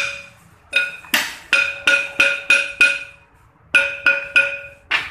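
Hammer blows on the metal of a Toyota Fortuner's brake assembly while the brake pads are being taken out: about a dozen sharp strikes in three quick bursts, each ringing with a clear metallic tone.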